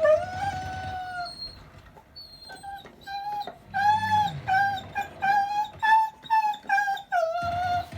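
Dog whining: one long high whine, then a quick run of about a dozen short whines, ending on a longer falling whine.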